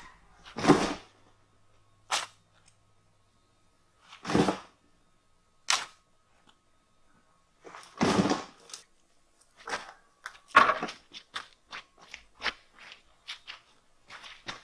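Shovel scraping up and dumping dry, powdery dirt clods into a hole, a separate scoop-and-toss every second or two. Near the end come quicker, shorter knocks and scrapes.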